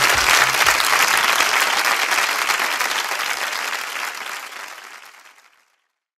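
Studio audience applauding at the end of a song, with the last beats of the music in the first second; the applause fades out over the last couple of seconds into silence.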